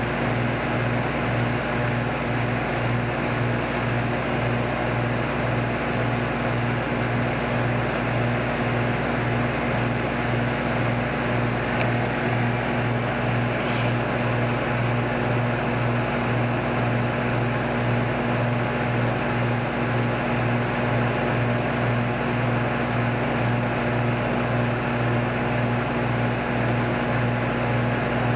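Microwave oven running with a cookie inside, a steady low hum that pulses evenly, about twice a second.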